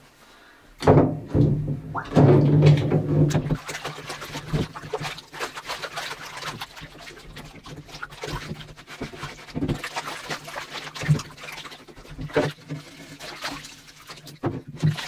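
Water sloshing and splashing in a bathtub as a wooden rifle stock is scrubbed with a rag in hot water, with knocks of the stock against the tub; loudest in the first few seconds.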